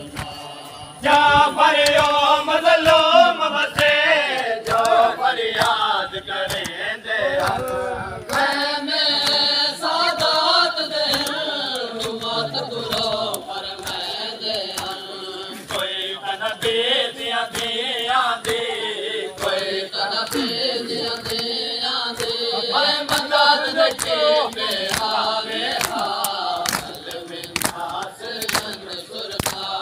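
Men chanting a noha, a Shia mourning lament, starting about a second in, with repeated sharp hand slaps of matam (chest-beating) throughout.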